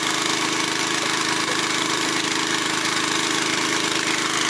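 Small engine of a crop-spraying rig, an Agria 1900 two-wheel tractor with a Honda motor pump, running steadily at a constant speed while the rig sprays.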